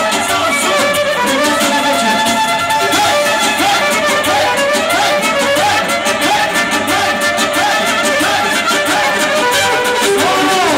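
Band playing lively traditional dance music, led by an ornamented violin melody over a steady beat.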